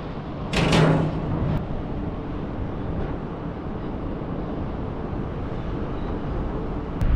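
Wind buffeting the microphone at height, a steady rumbling rush. About half a second in comes a brief louder burst of noise.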